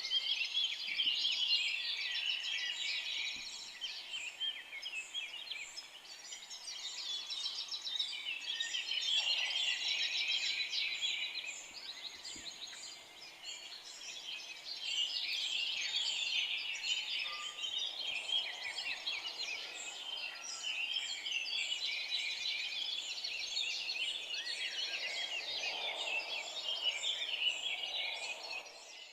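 Dense forest bird chorus: many small birds chirping and trilling at once in overlapping, high-pitched calls.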